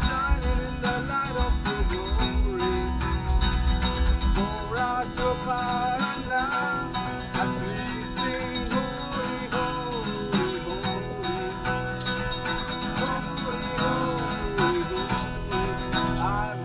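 Background music with guitar and a wavering melody line.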